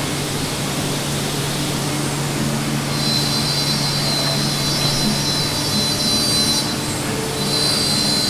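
Steady guitar-factory machinery noise: a constant rushing din with a low hum underneath. About three seconds in, a high steady whine joins it; the whine drops out briefly about seven seconds in and then comes back.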